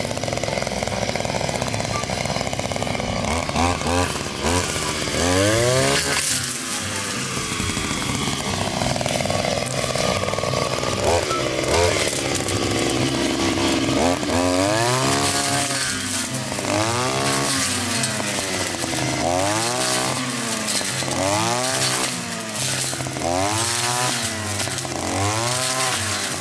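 Ryobi 143R two-stroke brush cutter with a 40 mm piston, revving up and down over and over as it cuts through a clump of tall reeds; from about the middle on the revs rise and fall about once a second.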